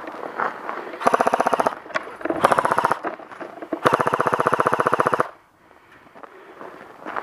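Airsoft rifle firing on full auto in three bursts of rapid, evenly spaced shots: a short one about a second in, another at about two and a half seconds, and a longer one of over a second starting about four seconds in.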